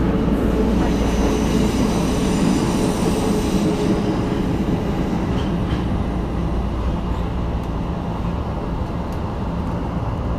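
Tokyo Metro 2000 series subway train running: a steady rumble of wheels on rail. A thin high-pitched whine rides over it for the first few seconds, then fades out.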